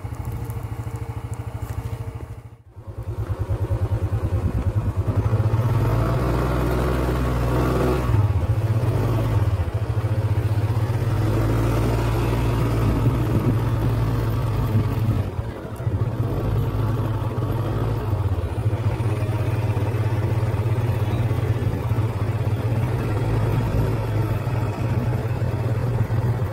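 Motor scooter engine running steadily while riding, a continuous low drone that drops out briefly about three seconds in.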